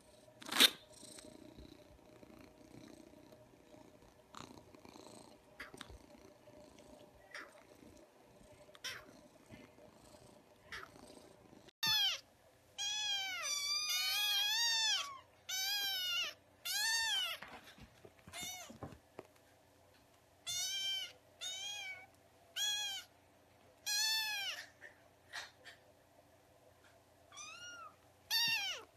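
Kitten meowing over and over in high, arched calls, starting about twelve seconds in. Before the meows there are only faint small clicks and one sharp tap near the start.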